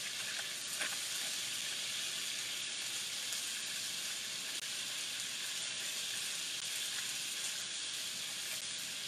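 Chicken pieces frying in hot oil in a pot, a steady crackling sizzle. A light click about a second in.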